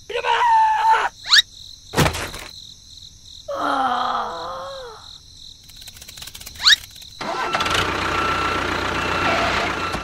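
Sound effects for a model tractor: two quick rising whooshes, a thud about two seconds in, a wavering pitched sound in the middle, and a steady engine-like noise over the last few seconds.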